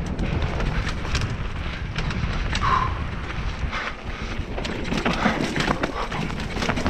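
Mountain bike descending a dirt downhill trail at speed: a steady rumble of wind buffeting the camera microphone and tyres on dirt, broken by many quick clicks, knocks and rattles of the bike over bumps.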